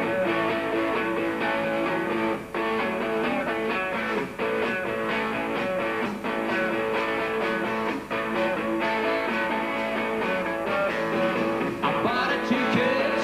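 Rock band playing live, led by guitar.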